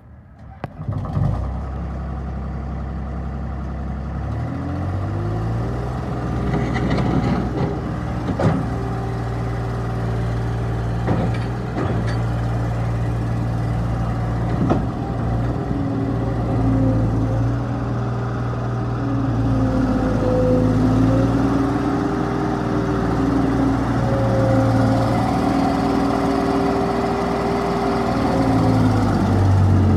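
New Holland C185 tracked skid steer loader's diesel engine starting about a second in and idling, then throttling up around four seconds in and running steadily at higher revs, with a few sharp clanks, before the revs drop near the end.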